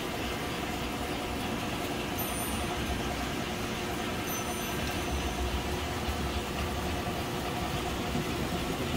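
Electric model trains running on the layout tracks: a steady hum and low rumble.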